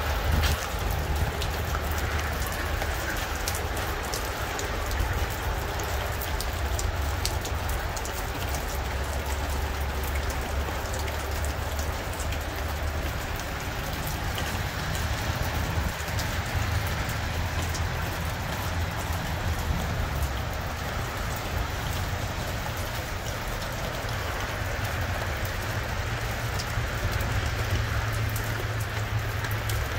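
Steady rain falling, with many small sharp drop ticks, over a continuous low rumble.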